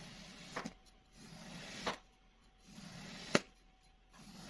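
A steel knife slicing down through a molded block of kinetic sand three times, about every second and a half. Each cut is a soft gritty crunch that ends in a sharp tap as the blade meets the tabletop.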